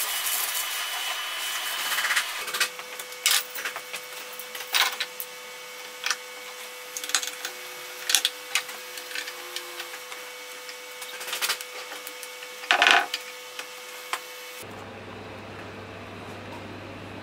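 Shop vacuum running with a thin whine as its hose nozzle is drawn over a rough old oak beam, stopping about two seconds in. After that come scattered clicks, taps and scrapes as metal recessed downlight trim rings are handled and pressed into holes in the beam, the loudest scrape near the end, then a low steady hum.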